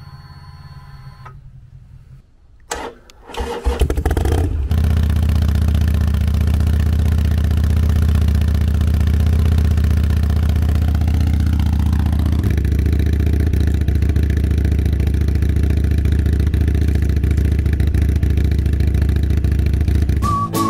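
Harley-Davidson Iron 883's air-cooled V-twin, fitted with a Gallop Flying Comet 2-into-1 exhaust, being started. It cranks briefly about three seconds in, catches about a second later, and then idles steadily.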